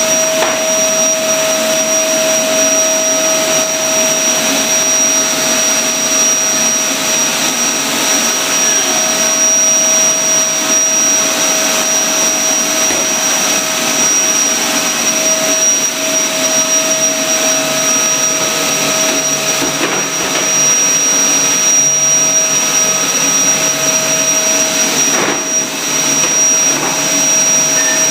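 Vacuum cleaner running steadily, a continuous rushing hiss with a constant whine over it, used to clean a kitchen floor.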